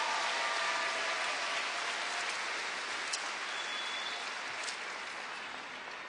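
Large arena crowd applauding, with a few shouts and whistles in the first two seconds, the clapping slowly dying away.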